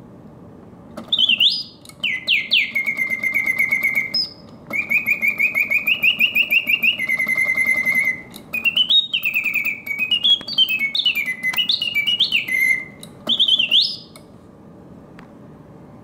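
Karl Griesbaum double singing birdcage automaton whistling its mechanical bird song through its bellows-driven whistle. It sings in several phrases of rising glides and rapid trills, starting about a second in and stopping near the end.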